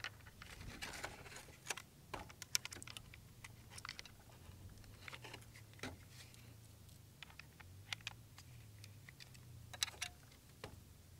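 Faint, irregular small clicks and taps of a Holosun enclosed red-dot sight being set onto the mounting plate on a pistol slide, with small metal parts being handled.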